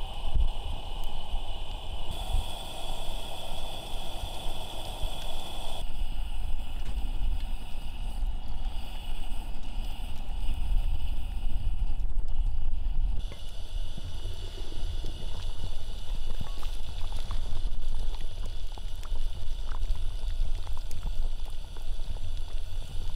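Low, uneven wind rumble on the microphone, with faint pops and ticks from a pot of stew bubbling over a charcoal grill.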